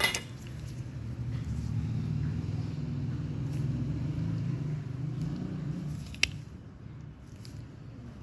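A low steady rumble that fades away about six and a half seconds in, with a sharp click at the start and another about six seconds in.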